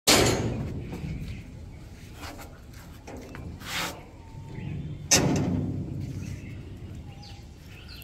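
Two heavy thuds about five seconds apart, each fading away over a second or two, with fainter knocks and a brief rustle between them.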